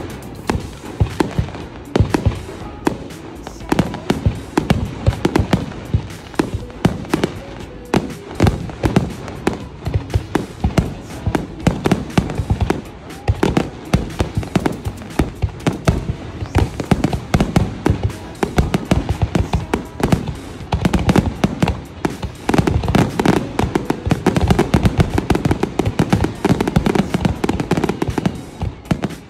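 Fireworks display: aerial shells bursting one after another, a rapid string of bangs and crackles that thickens into a dense volley near the end.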